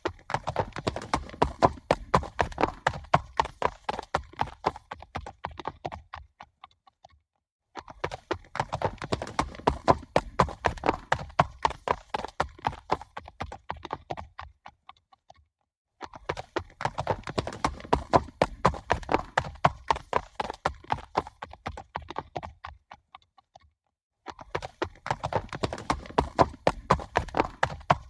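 Horses galloping: rapid, dense hoofbeats in runs of about six seconds that fade out, each followed by a short gap before the next run begins, four runs in all.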